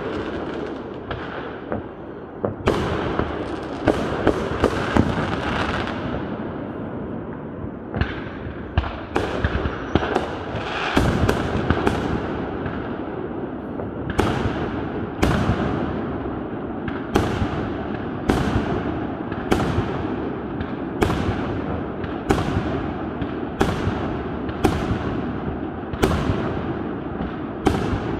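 Aerial fireworks bursting in a steady barrage: sharp bangs, each trailing off in an echo, several close together early on and then about one a second, over a continuous din between the bangs.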